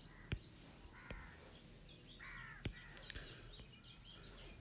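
Faint birds calling: two short harsh caws about one and two seconds in, then a quick run of high chirps near the end. A few light, sharp taps of a stylus on a tablet's glass screen.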